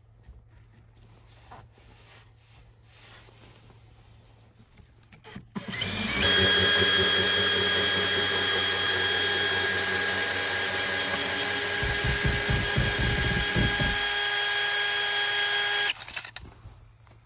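Cordless drill with a right-angle adapter turning a scissor jack's screw. It starts about six seconds in, runs with a steady whine for about ten seconds, and cuts off suddenly. A rapid low rattle joins in for about two seconds near the middle of the run.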